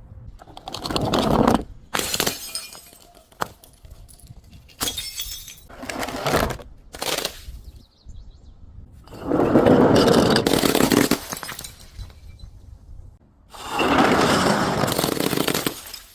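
Glass breaking: a string of short sharp cracks and shattering, then two longer crunching bursts of about two seconds each as the glass is crushed.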